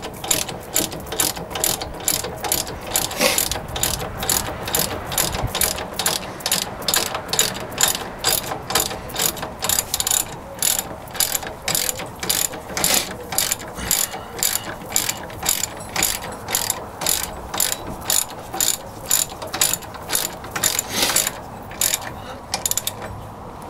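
Socket ratchet with an extension clicking steadily, about two to three clicks a second, as it is worked back and forth tightening a brake assembly bolt; the clicking stops near the end.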